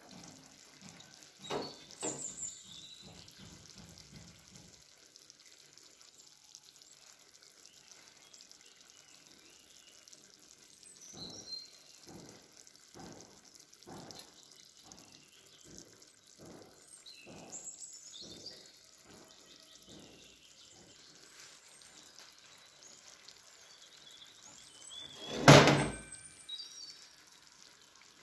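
Earthenware tagine lid knocking twice against its clay base as it is lifted, then scattered soft taps and clicks of handling, and one loud thunk near the end.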